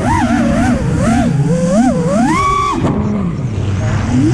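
Brushless motors of an FPV freestyle quadcopter whining as the throttle changes, the pitch swinging quickly up and down. It climbs to a high held note about two and a half seconds in, then drops away sharply.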